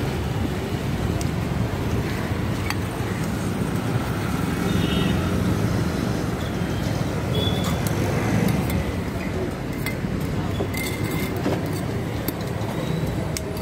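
Steady roadside traffic noise, with a few sharp clinks of a steel ladle against steel pots and a serving plate.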